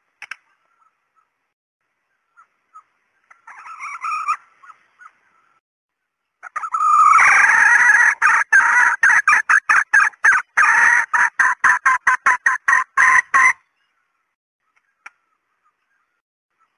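Female red junglefowl calling: one short call about four seconds in, then a long rapid run of short cackling notes lasting about seven seconds that crowd closer together toward the end.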